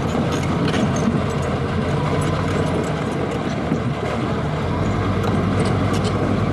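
Diesel engine of heavy earthmoving equipment running steadily, with scattered light clanks and rattles; the low engine note shifts a little under five seconds in.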